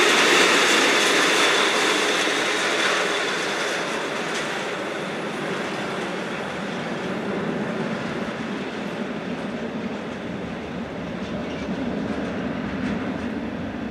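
Freight train of tank wagons rolling past on steel wheels. The sound fades over the first few seconds as the end of the train moves away, then carries on at a lower level.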